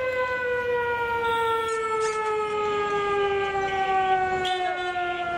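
A siren sounding one long note whose pitch slides slowly and steadily downward, over a low rumble of street noise.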